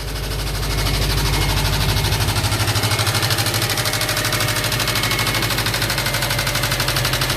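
2005 Subaru Impreza WRX STI's turbocharged flat-four engine running with a fast, even knocking that gets louder about a second in. The owner takes the knock for a rod knock.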